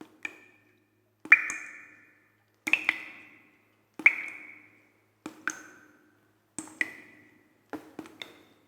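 Water drops dripping one at a time. Each is a sharp plink with a short ringing note that dies away quickly, coming about every second and a half, some in quick pairs or triples.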